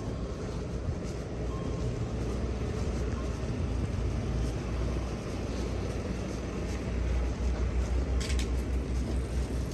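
Street traffic ambience: a steady low rumble of vehicles on the road, with wind buffeting the microphone, stronger in the last couple of seconds. A brief hiss a little past eight seconds in.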